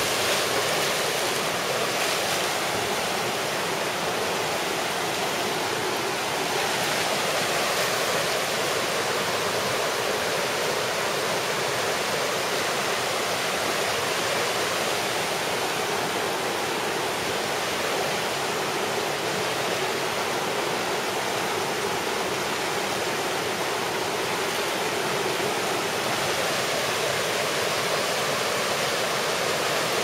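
River rapids rushing over rocks: a steady, unbroken rush of water.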